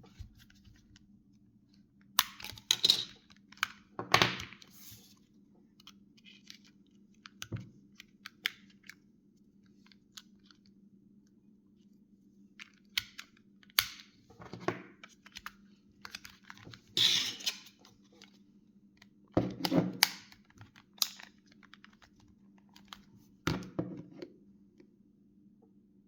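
Handling noise from a Nokia 6670 mobile phone: irregular clicks, knocks and short rustling scrapes in scattered clusters, over a faint steady low hum.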